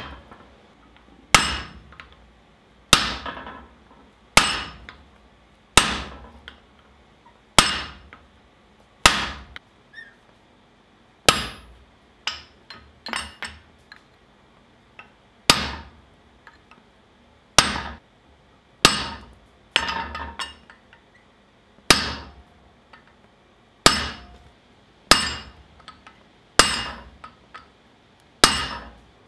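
Hand hammer striking the head of a steel punch held against a glowing-hot workpiece in a swage block, stamping recesses into it. Single sharp metallic blows with a short ring after each, mostly about one and a half seconds apart, with a few quicker double and triple hits.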